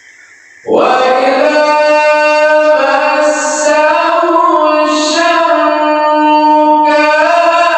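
A male qori chanting Quranic recitation (tilawah) in a melodious style. The voice comes in suddenly about a second in and holds long, ornamented notes.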